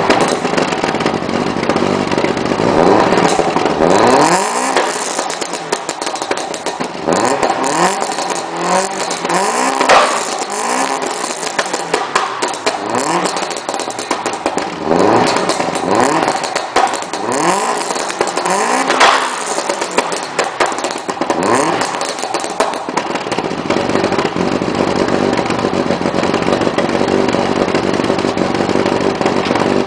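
Subaru Impreza WRX STI's turbocharged flat-four engine being revved through its exhaust: quick rises in pitch every second or two, each dropping back, with sharp crackles between revs. In the last several seconds it settles into a steadier note.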